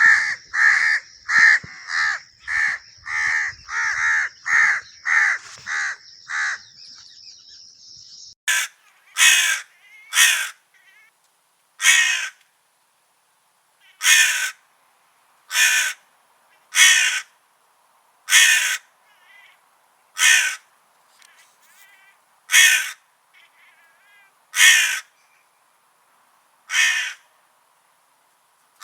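Crows cawing. A fast run of harsh caws, about two a second, lasts for the first six seconds or so, then single loud caws follow every one and a half to two seconds.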